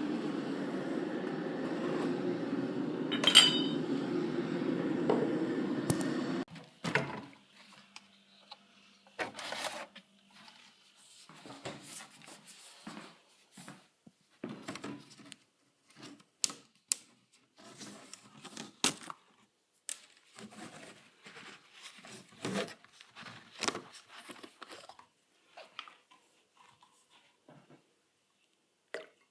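A steady low rumbling noise with one sharp click, cutting off abruptly about six seconds in, then scattered clicks, knocks and short clatters of small hard objects being handled.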